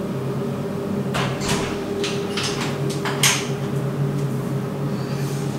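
A steady low hum with several brief rustling or scraping noises over it, the loudest just after three seconds in.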